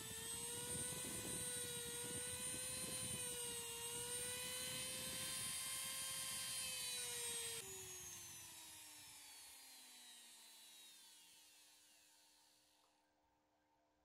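Dremel rotary tool running at high speed with a steady whine, its bit grinding into the wood as eye sockets are cut into the carving. About seven and a half seconds in it is switched off, and the whine falls in pitch and fades as the tool spins down.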